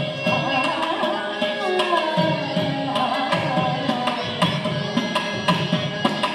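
Live Carnatic music: a woman singing with gliding ornaments, a violin following her, and mridangam drum strokes throughout, over a steady drone.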